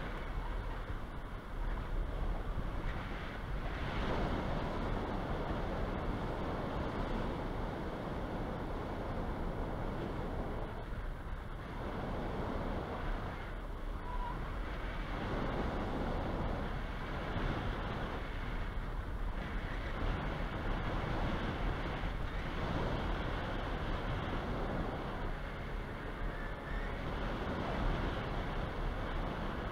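Wind rushing over the microphone of a camera mounted on a hang glider in flight: a steady airflow roar that swells and eases every few seconds.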